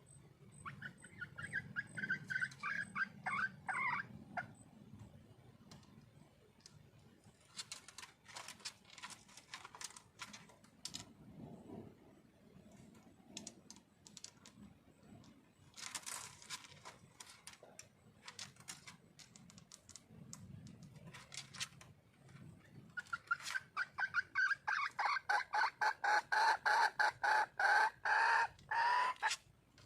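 Wild junglefowl hen giving her mate-calling cluck: a short run of quick repeated notes near the start and a longer, louder run of fast notes near the end. Scattered short clicks are heard between the two runs.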